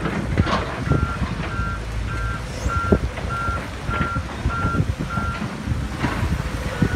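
A heavy vehicle's reversing alarm beeping, about eight evenly spaced high beeps less than a second apart that stop a little after five seconds in, over a low engine rumble and scattered knocks.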